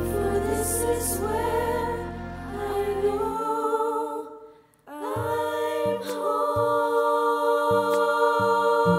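A group of young voices singing held harmonies with vibrato over a soft instrumental backing. About four and a half seconds in the music falls almost silent, then a new sustained chord comes in over a stepping bass line.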